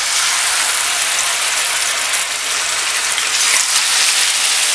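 Marinated chicken breast slices frying in shallow hot oil in a nonstick pan, with a loud, steady sizzle.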